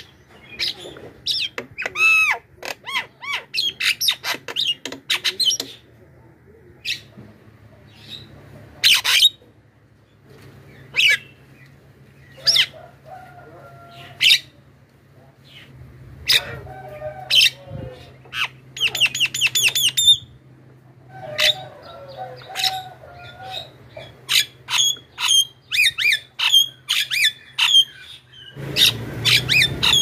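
Javan myna calling in quick, loud strings of short, sharp shrieks and chirps, broken by a few lower, throaty phrases, with a fast run of rising notes about two-thirds of the way through.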